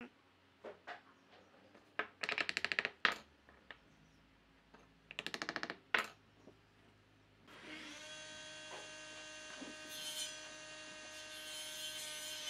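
Small wooden pegs fitted into mortises in a wooden rail: two bursts of rapid wood-on-wood rattling and tapping, each ending in a sharp knock. From about halfway through, a steady hum with several tones sets in.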